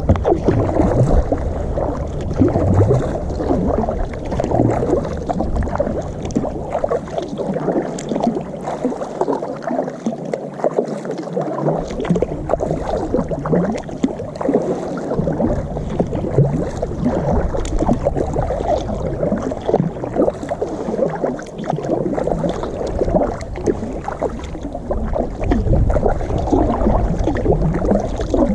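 Water splashing and lapping around a kayak as it is paddled, with a low wind rumble on the microphone that drops away for a few seconds near the middle.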